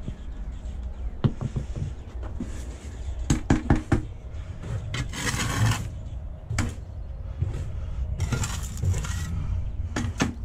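Steel mason's trowel knocking and scraping against flagstone and a mortar bucket: a quick cluster of sharp clinks, then two longer scrapes through mortar.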